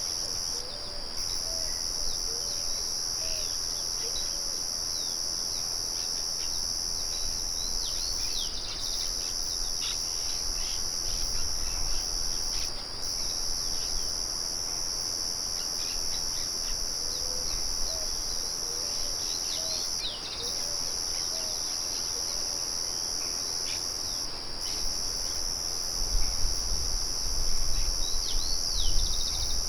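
Crickets trilling in a steady, high, continuous chorus that drops out briefly a few times, with birds chirping over it in short calls. A low rumble comes up near the end.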